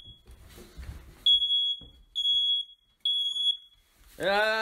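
Smoke alarm sounding: three short, shrill beeps, each about half a second long and just under a second apart. Near the end a louder, steady, low-pitched buzzing tone cuts in.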